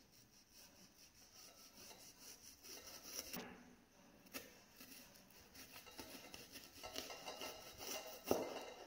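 Kitchen knife slicing a red onion on a plastic cutting board: a run of crisp cuts and light taps of the blade on the board. The loudest knock comes about half a second before the end.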